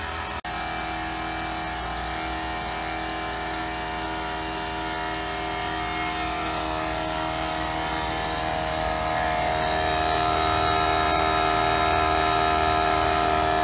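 Two electric air compressors running together, an HDX 2-gallon pancake compressor and a Campbell Hausfeld 8-gallon quiet compressor, pumping up their tanks. The loudest part is the HDX, a steady mechanical hum with a whine that cuts out for an instant just after the start and grows somewhat louder about nine seconds in.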